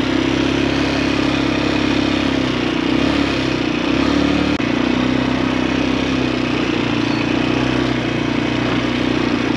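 Italika quad bike's small single-cylinder four-stroke engine running steadily while being ridden. Its lower note shifts a little around the middle, then settles back.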